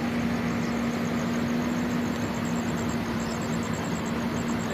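Heavy diesel engine running steadily at idle, a constant even hum under a steady wash of noise.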